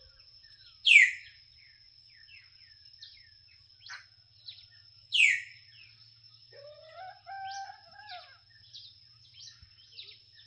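Several birds calling: two loud, sharp calls sweeping steeply down in pitch about four seconds apart, many short chirps between them, and a lower, drawn-out whistled call a little past the middle, over a steady thin high-pitched whine.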